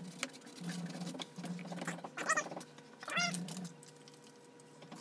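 A cat meowing twice, two short rising-and-falling calls about a second apart in the middle, over light clicks and rubbing from handling a vinyl door panel.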